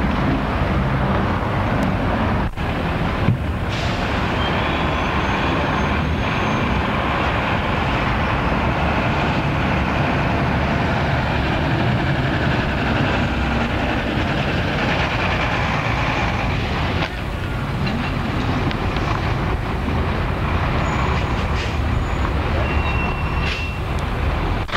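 Steady running noise of a moving vehicle: a constant rumble with a few brief, faint high squeals.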